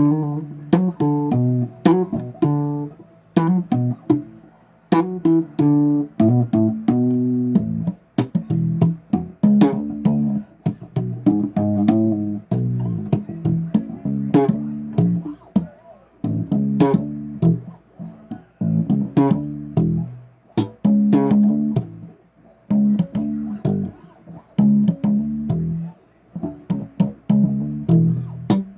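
Electric bass guitar played solo: plucked notes and short riffs with brief pauses between phrases.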